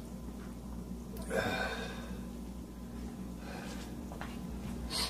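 A man breathing close to the microphone: a longer exhale about a second and a half in and a few short sniffs later, over a steady low hum.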